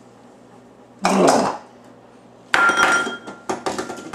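A short low grunt about a second in, then a ceramic bowl clinking with a ringing note about two and a half seconds in, followed by a few lighter knocks on the bowl and counter.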